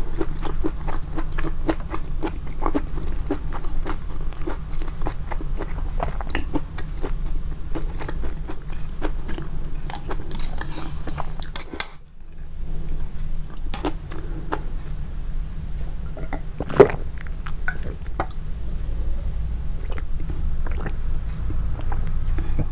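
Close-miked chewing of japchae glass noodles: fast, wet mouth clicks and smacks, over a steady low hum. The chewing breaks off briefly about halfway and resumes, and one sharp, louder click stands out about two-thirds of the way in.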